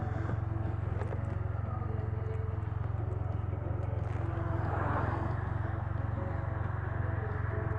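Can-Am Spyder three-wheeled motorcycle's engine idling steadily while stopped, a constant low, even pulsing, with a faint swell of noise about five seconds in.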